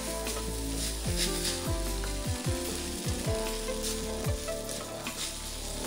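Wet noodles, cabbage and mustard greens sizzling in a hot wok as a wooden spatula stirs and tosses them, with steady frying crackle throughout. Background music plays underneath.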